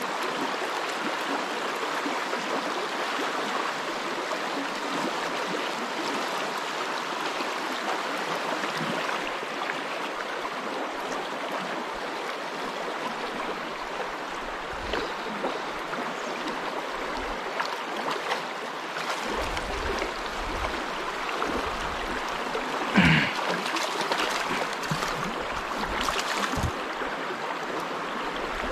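Fast river water running steadily over stones and logs in a shallow riffle. A short, louder sound stands out about 23 seconds in.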